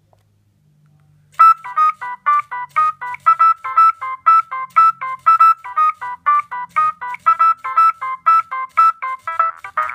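Nokia 3595 mobile phone ringtone playing: a quick run of short beeping notes, about four a second, bouncing between two pitches, starting about a second and a half in. Near the end a different ringtone begins.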